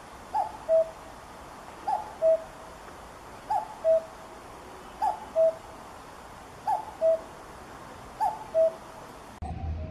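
Common cuckoo calling "cu-ckoo" six times in a steady series, each a higher note dropping to a lower one, over a steady hiss. Near the end a different recording with a low rumble starts.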